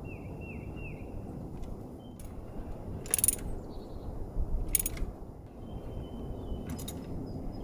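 Ratchet and socket putting the ignition-coil hold-down bolts back in on a Toyota Tacoma engine: three short, sharp metallic clicking bursts a second or two apart, over a steady low background noise. Three quick falling chirps come at the start.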